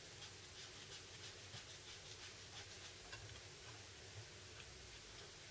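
Faint small clicks and scratching of a camcorder lens hood being turned and its locking screw worked by hand, several fine ticks a second, with a louder click near the end.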